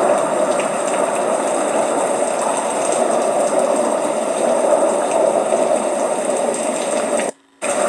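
Steady rush of floodwater, a loud even roar of flowing water, broken off by a brief gap near the end.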